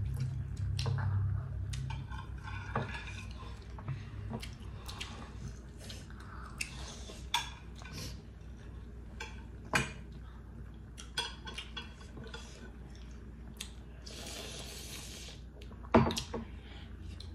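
Table eating sounds: a fork clinking and scraping on ceramic plates, with scattered sharp clinks. The loudest clinks come about ten seconds and sixteen seconds in.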